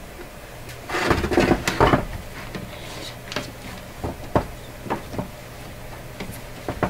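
Clicks and knocks of a cordless drill handled and turned by hand on a workbench: a burst of dense rattling clatter about a second in, then scattered single clicks.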